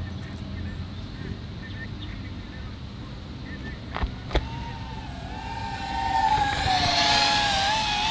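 FPV drone's motors and propellers whining, the pitch wavering up and down with the throttle and growing louder from about two-thirds in as the drone comes close. Two sharp clicks a little before halfway.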